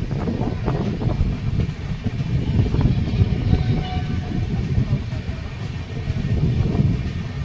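Train running on the track: a steady low rumble of wheels and carriages.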